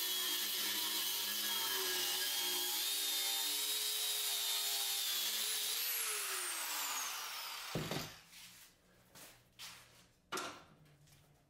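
Angle grinder cutting through the forged steel bar to part off the blade, a steady whine over grinding noise. About six seconds in it is switched off and the whine falls away as the disc spins down, followed by a few light knocks.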